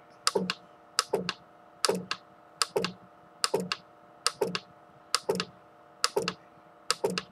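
Computer keyboard jog key pressed nine times at an even pace, about every 0.8 s, each press a quick double click, stepping the CNC mill's table in ten-thousandth-inch increments to measure backlash. A faint steady hum lies underneath.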